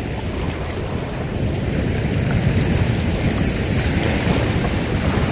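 Wind buffeting the microphone with a steady low rumble over the wash of small waves on the beach. A faint high-pitched ticking comes in about two seconds in and fades a couple of seconds later.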